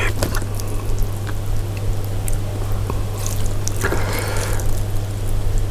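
Luosifen rice noodles being lifted out of their broth with chopsticks and a metal spoon: soup dripping and trickling back into the tray, with scattered light clicks of the utensils. A steady low hum runs underneath.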